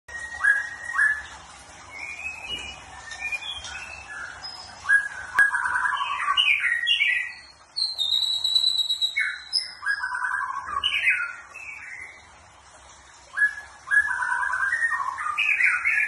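Small caged songbird singing in repeated bursts of rapid chirps and trills, with short pauses between bursts and a thin high whistle about halfway through.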